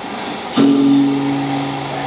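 A gong struck once about half a second in, its low, pitched note ringing on and fading slowly: one beat of the gong accompaniment for the Kadazandusun sumayau dance.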